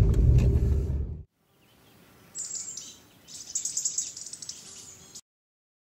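Car cabin noise, a steady low engine and road rumble, for about the first second, cutting off abruptly. After a short pause, small birds chirp and twitter in high-pitched bursts for about three seconds, with a brief break in the middle.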